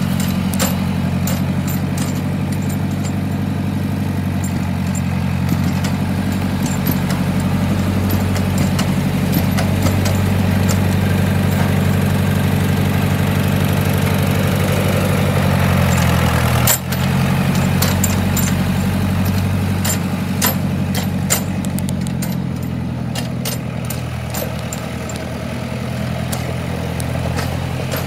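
John Deere 3020 tractor's four-cylinder engine running at a steady speed as the tractor is driven on gravel. About 17 seconds in there is a sharp break and the engine note drops slightly. It grows quieter near the end as the tractor moves off.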